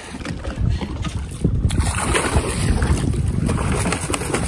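Wind buffeting the microphone over water sloshing against a Sea-Doo Fish Pro jet ski's hull, with a few scattered knocks; it gets louder about a second and a half in.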